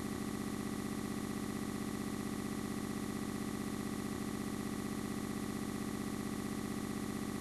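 A steady electronic drone with many even overtones, strongest low down, holding the same pitch and level throughout.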